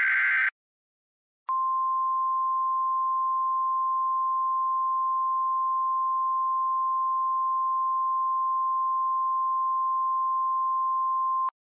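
The tail of an EAS SAME data burst, a buzzy digital screech, cuts off about half a second in. After a second's gap comes the Emergency Alert System attention signal: the National Weather Service's single 1050 Hz tone, one steady unwavering pitch held for about ten seconds, which stops abruptly just before the end. It marks the start of a new warning.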